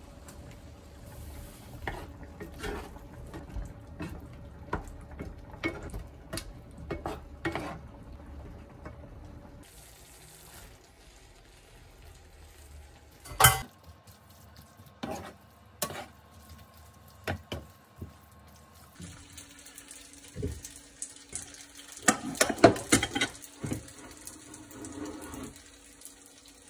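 Wooden spatula stirring tomato sauce and spaghetti in a nonstick frying pan, knocking against the pan again and again. A louder burst of clatter, like dishes being handled, comes near the end.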